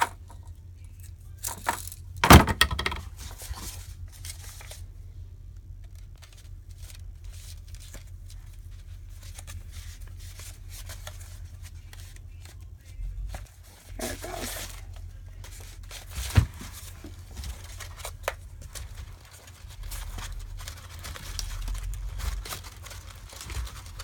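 Rustling, crinkling and scraping of corrugated cardboard paper rolls and rope being handled and threaded together on a table, with scattered light knocks and a sharper knock about two seconds in.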